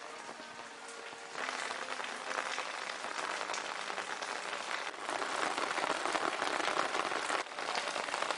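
Rain falling on leaves and a garden, a dense, even hiss of many drops. It gets louder in steps, about a second and a half in and again around five seconds.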